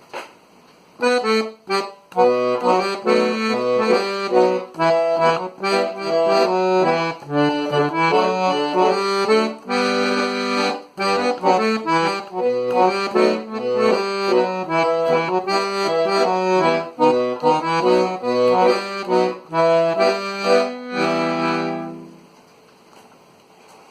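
Accordion playing a tune slowly and plainly, with few ornaments, melody over a rhythmic bass, ending on a held chord near the end.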